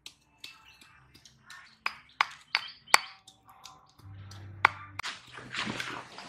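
Stone pestle striking in a stone mortar while pounding chillies: a series of sharp, irregular knocks, with rustling near the end.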